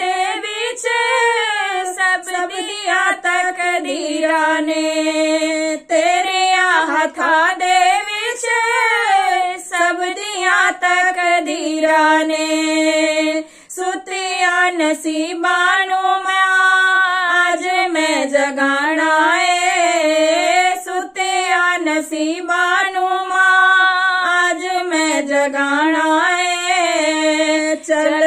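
Two women singing a Hindi-Punjabi devotional bhajan to the Mother Goddess together, holding and bending long sung notes, with a brief breath pause about halfway through.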